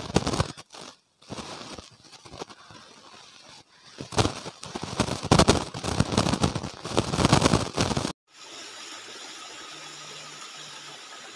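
Falling water splashing and gushing close to the microphone, loud and uneven with a few brief dropouts. About eight seconds in it cuts to a steady, quieter rush.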